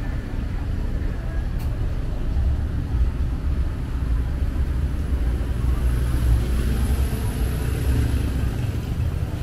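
Street traffic: the low rumble of a car passing on the road alongside, building about two seconds in and easing off near the end, with a faint hiss of tyres in the middle.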